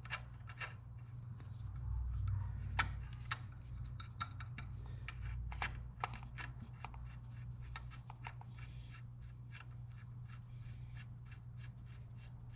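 Irregular light clicks and ticks of a 10 mm wrench and small motorcycle parts being handled while a nut is unscrewed, over a steady low hum.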